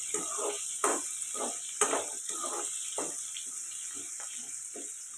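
Sliced onions and curry leaves sizzling in hot oil in a nonstick frying pan while a slotted spatula stirs them, scraping across the pan in repeated strokes, with a couple of sharper clacks about one and two seconds in. The onions are being lightly sautéed in the oil left from the mustard and fenugreek tempering.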